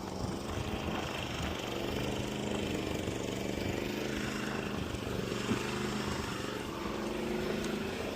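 Engine running steadily at idle, an even low hum with a few faint knocks over it.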